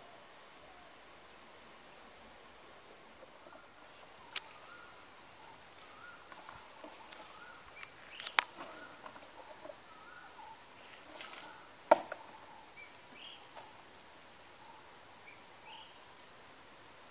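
Outdoor garden ambience: a steady high-pitched insect drone, with faint scattered bird chirps and three sharp clicks, about four, eight and twelve seconds in, the last the loudest.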